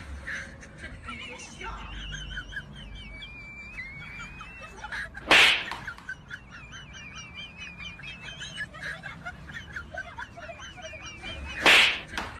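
Birds chirping continuously in quick, wavering notes, cut twice by a loud, sudden swish, about six seconds apart.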